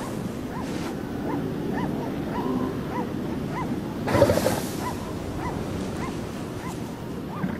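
Elephant seals calling on a breeding beach: a string of short, high yelping calls, each rising and falling, about two a second, with a louder, rougher call about four seconds in.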